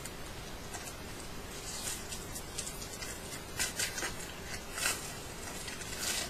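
Magic: The Gathering trading cards being handled, with a string of short scraping rustles as the cards slide and flick against each other, over a steady recording hiss.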